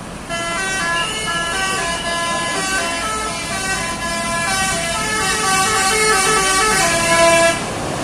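A tour bus's basuri telolet horn plays a long tune of short notes that step up and down in pitch, several a second. It starts just after the opening and cuts off sharply near the end.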